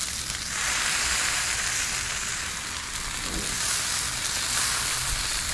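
Ahi tuna steak searing on a hot Blackstone flat-top griddle: a steady sizzle that gets louder about half a second in.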